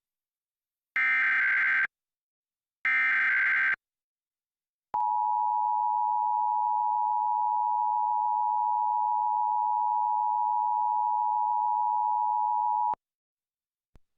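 Emergency Alert System (EAS) broadcast: two one-second screeching SAME data-header bursts about a second apart, then the steady two-tone EAS attention signal held for about eight seconds before it cuts off sharply. This is the required monthly test of the alert system.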